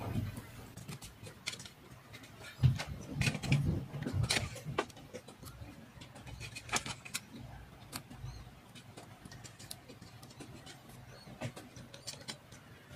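Hands working wire leads and a rotary selector switch on a metal chassis: scattered small clicks, taps and rustles, busiest about three to five seconds in.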